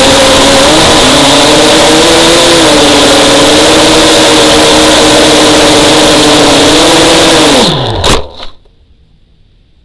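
FPV racing quadcopter's brushless motors and propellers, a loud steady buzzing whine whose pitch shifts slightly with throttle. About eight seconds in the pitch drops steeply as the motors spin down, with a couple of sharp knocks, and the sound cuts off.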